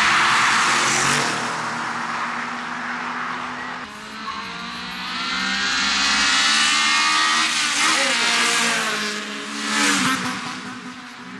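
Two street-racing cars accelerating hard side by side, their engines revving with rising pitch. The pitch dips and climbs again about eight seconds in. The sound is loudest as they pass close by near the end.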